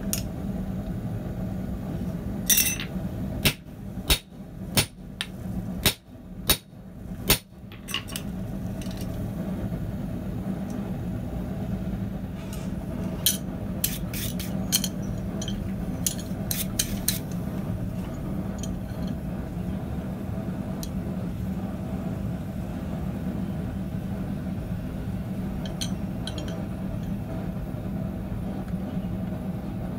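Hand hammer striking hot steel bar against a steel bending jig: a burst of about seven sharp metal strikes a few seconds in, then a lighter run of quick taps around the middle. A steady low hum runs underneath.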